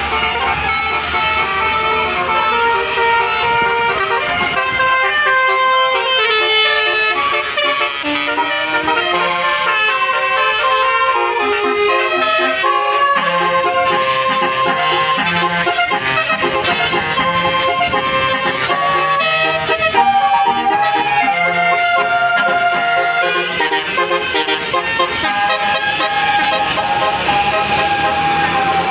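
A bus's basuri 'telolet' horn, a multi-tone musical air horn, playing a tune: several held notes sound together and step from pitch to pitch, loud and unbroken.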